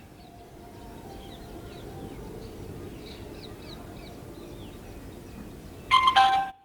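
Faint background hiss with scattered bird chirps. About six seconds in, the Bluetooth amplifier module sounds a short, loud two-note prompt tone through its speaker, a higher note then a lower one, typical of the module signalling a phone pairing after it has announced it is ready to pair.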